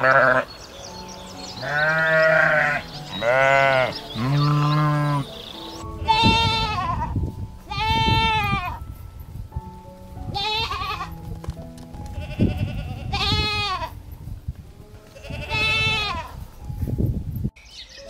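An animal calling repeatedly, about eight cries roughly a second long, each rising and then falling in pitch, over soft background music.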